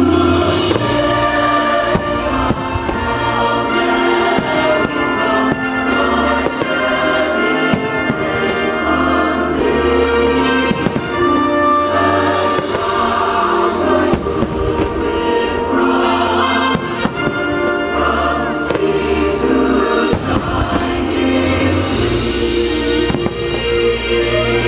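A choir singing American folk-song music over the fireworks soundtrack, with aerial fireworks shells bursting in sharp bangs and crackles throughout.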